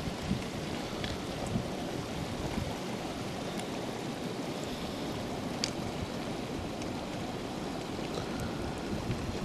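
Wind blowing across the microphone: a steady rushing noise with uneven low rumbling buffets, and a few faint ticks.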